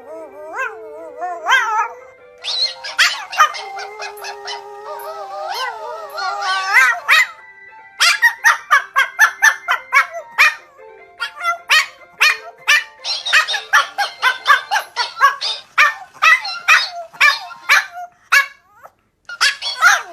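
Dog barking in long runs of quick, sharp barks, about two to three a second, with wavering, howl-like calls in the first several seconds.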